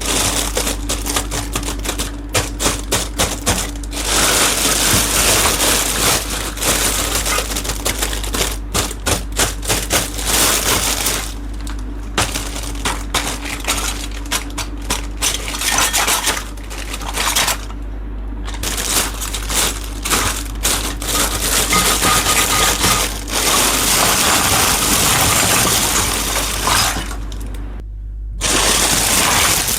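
Miniature toy kitchen pieces and their packaging handled close to the microphone: rapid clicks, taps and light clinks in quick clusters, over a low steady hum.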